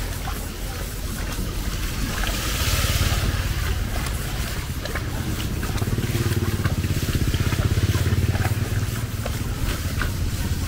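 A motor vehicle's engine running as it passes on a rain-soaked street, loudest about six to nine seconds in, over a steady hiss of rain with scattered small patters. A brief louder hiss swells about two seconds in.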